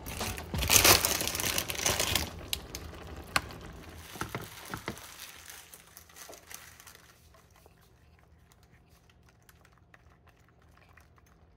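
Crinkling and rustling of a cracker packet as water crackers are taken out and laid on the steaming fish, loudest in the first two seconds and then tapering off. It fades to a faint steady hum.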